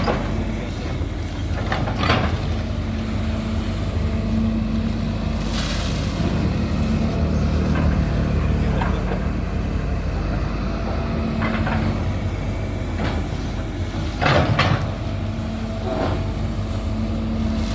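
Hydraulic excavator's diesel engine running steadily, with short sharp hissing and clanking noises from the working machine every couple of seconds.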